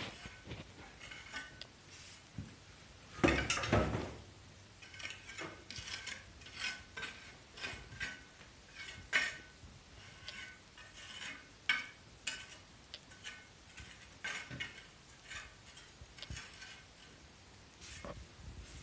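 Metal pointing trowel scraping and clinking against mortar and stone while the joints of a stone wall are pointed, in short, irregular strokes, with one louder knock about three seconds in.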